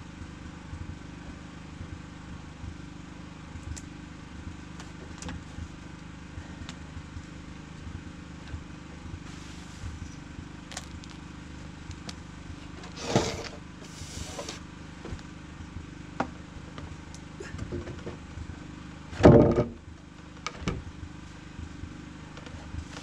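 Wooden planks being handled and set down on a deck frame, with scattered light knocks and a few louder wooden thumps about halfway through and near the end, the loudest of them near the end. A steady low hum runs underneath.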